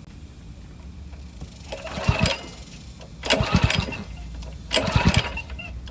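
Honda GX200 small engine being cranked by its recoil pull-starter, three pulls about a second and a half apart, each a short whirring rattle; the engine does not catch. The pulls are a spark check through an inline spark tester, and the engine shows spark, so the no-start lies elsewhere (old fuel or a clogged carburetor suspected).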